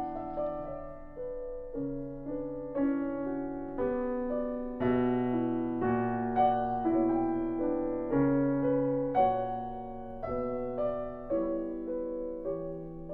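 Piano music: notes and chords struck about once or twice a second, each fading away after it is played.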